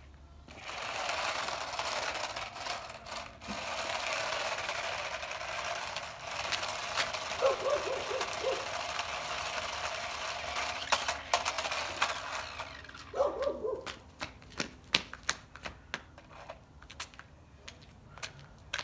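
Toy radio-controlled car's small electric motor running and its wheels rolling over concrete, steady for about twelve seconds and then stopping. After it stops come scattered light clicks and taps.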